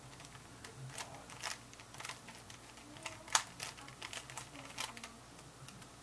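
A plastic Rubik's Cube's layers being twisted by hand: an irregular run of quick clicks and clacks, the loudest a little past three seconds in.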